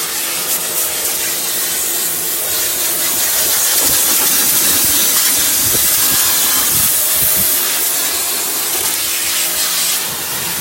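Power NexGen Electric-Series pressure washer spraying a high-pressure water jet against a car's paintwork to strip baked-on bugs: a loud, steady hiss of spray, with the machine's faint steady hum underneath.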